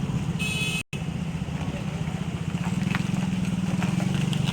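An engine running steadily with a fast, even pulse, broken by a momentary dropout just under a second in.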